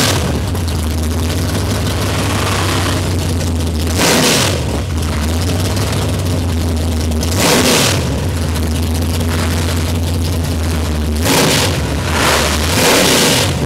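Vintage 1960s drag-racing cars' V8 engines idling loudly with a deep, steady note. The throttle is blipped to a short, sharp rev about every three or four seconds.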